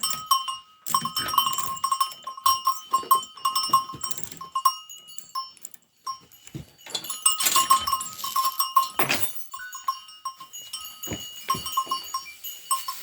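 Metal bells on the necks of livestock clanking irregularly as the animals move about, with scattered knocks and rustling from their movement.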